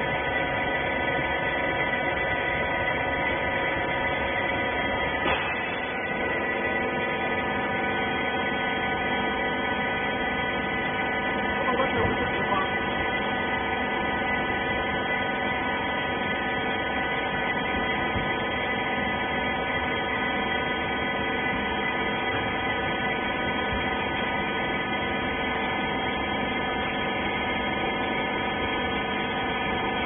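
Steady hum of a small hydraulic rag baler's electric motor and pump running, made of many steady tones, with a few light knocks about five seconds in and again about twelve seconds in.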